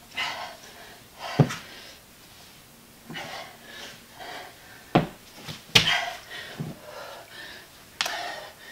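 A woman panting and breathing hard under exertion, with a few sharp thumps against the floor during dumbbell exercise.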